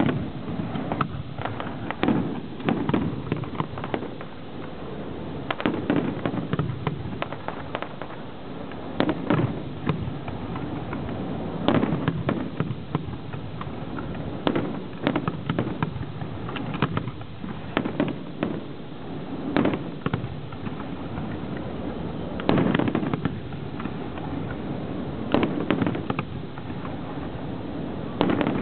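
Aerial fireworks display: shells bursting in irregular volleys of sharp bangs, some in quick clusters, over a continuous crackle and rumble.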